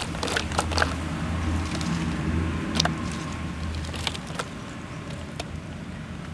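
Red chilies and a garlic bulb dropped into a plastic basin of water: scattered light taps and small splashes, thickest in the first few seconds, over a low steady rumble.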